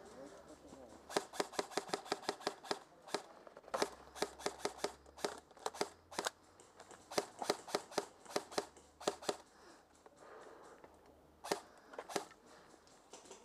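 Airsoft gunfire: several bursts of rapid, sharp cracks, several a second, then two single cracks near the end.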